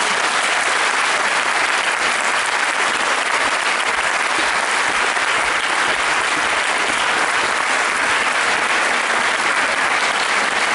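An audience applauding steadily, many people clapping at once in a dense, even wash.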